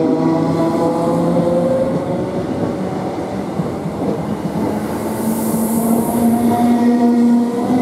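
Electric multiple unit moving along the platform at close range: its traction motors whine in several tones that slowly shift in pitch over the rumble of the wheels. A brief high hiss comes about five seconds in.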